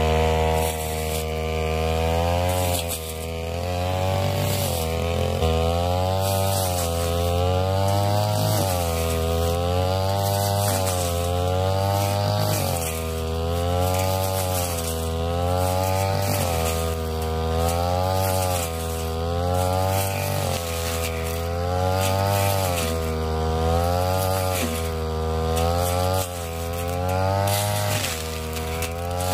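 Ryu backpack brush cutter engine running at high speed while its blade cuts thick grass. The engine note dips and recovers about every two seconds as the blade is swept through the grass and loads the engine.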